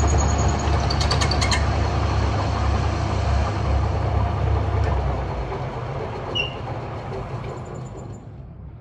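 Heavy machinery running: a loud low rumble that starts abruptly, with a few clicks about a second in, and fades away over the last few seconds.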